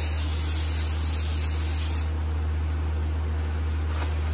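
Aerosol brake cleaner hissing from the can onto a new brake rotor in one continuous spray that stops about two seconds in, over a steady low hum.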